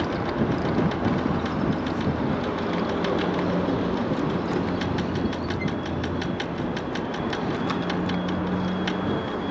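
MiniPro Mi716 electric scooter rolling over rough pavement: a steady rattling clatter with a run of sharp clicks, the knock in its front wheel.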